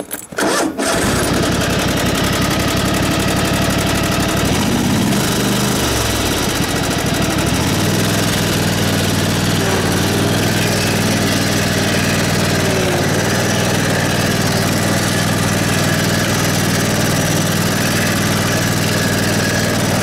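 Craftsman GT3000 garden tractor engine starting at once, about a second in, after a no-start fault was fixed, then running. Its speed dips and picks back up around five seconds in, then it runs steadily.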